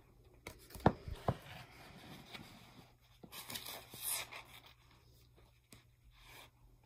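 Handling of a hardcover picture book: a couple of sharp knocks about a second in, then paper rustling as the book and its pages are moved.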